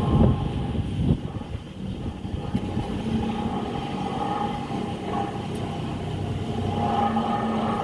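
Road-repair machinery running with a steady mechanical drone, with a couple of heavy knocks about a second in.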